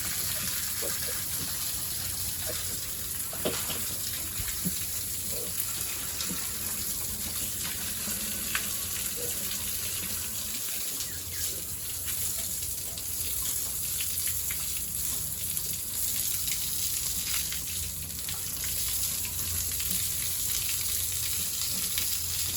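Water gushing steadily while pigs and their pen are washed down, with a few faint knocks.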